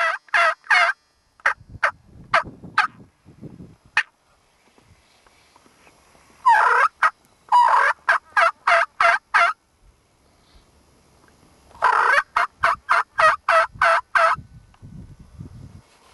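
Wild turkey yelping: loud runs of sharp, rapid notes, about four a second. After a few scattered single notes come two long runs of about three seconds each, with soft rustling in the pauses between them.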